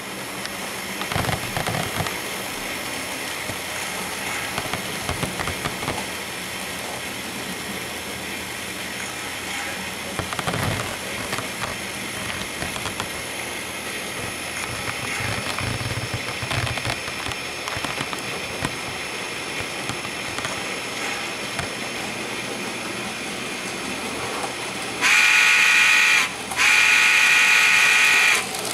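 Model steam locomotive's sound system playing a steady steam hiss as the train runs, with scattered light clicks, then two long whistle blasts near the end.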